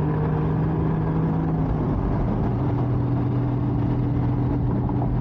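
Porsche 981's flat-six engine running steadily under road noise, its note dropping to a lower pitch about two seconds in.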